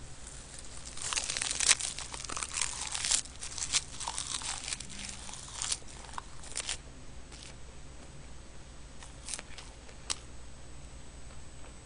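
Clear plastic bag and sheets of roasted seaweed (gim) crinkling as they are handled: a dense run of crackles in the first few seconds, thinning to scattered clicks later.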